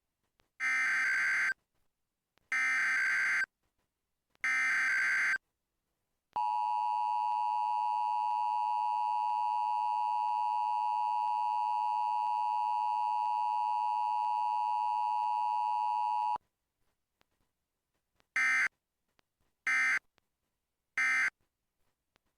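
Emergency Alert System Required Weekly Test: three buzzing digital data bursts of the SAME header, then the steady two-tone attention signal for about ten seconds, then three short end-of-message bursts near the end.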